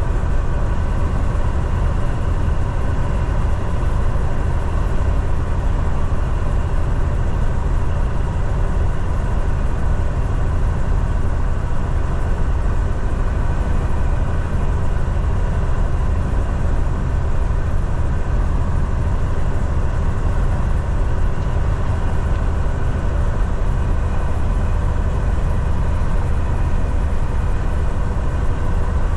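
Semi truck's diesel engine and road noise heard from inside the cab while cruising on the highway: a steady low drone that does not change.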